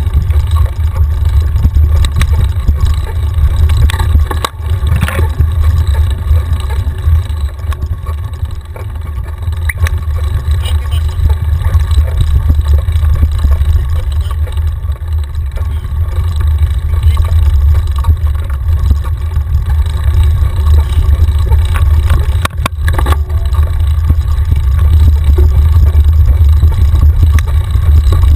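Wind buffeting a handlebar-mounted action camera's microphone on a mountain bike descending a dirt singletrack: a loud, steady low rumble, with scattered knocks and rattles from the bike over bumps. It eases a little midway, when the bike slows.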